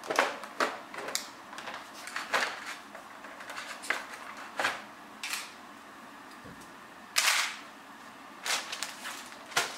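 Handling of small electronic parts in plastic: clear zip-lock bags crinkling and sharp plastic clicks in several short scattered bursts, the longest about seven seconds in.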